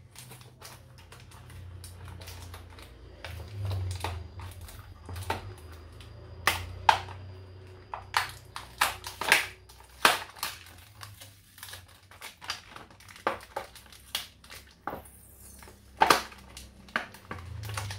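Clear plastic blister packaging being handled and pried at, giving irregular sharp clicks, snaps and crackles.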